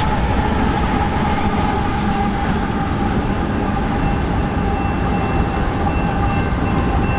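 Union Pacific freight train's diesel locomotives and cars running past on the rails: a loud, steady rumble of engines and wheels with a steady tone running through it. A fainter high tone joins about four seconds in.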